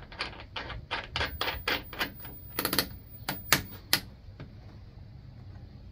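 An irregular run of sharp clicks and taps from hand work on the bed extender's mounting bracket and its bolt hardware. The clicks come several a second, cluster most loudly past the middle, and stop about four seconds in.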